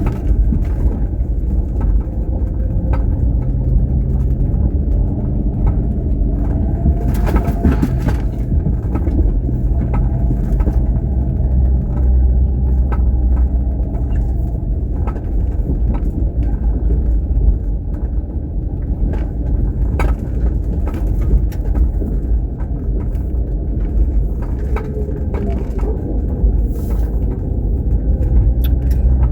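A road vehicle driving: steady engine hum and road rumble, with occasional small clicks and knocks.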